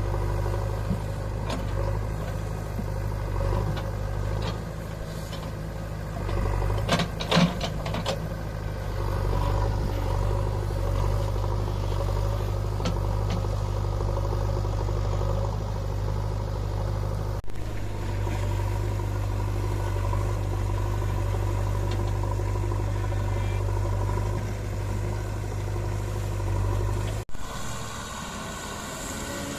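Diesel engine of a JCB 3DX backhoe loader running steadily, with a few sharp metallic clanks about seven seconds in. The engine drone cuts off abruptly near the end.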